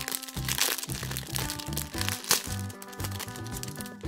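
Background music with steady notes, over which small clear plastic bags of diamond-painting drills crinkle as they are handled, with a few sharper crackles.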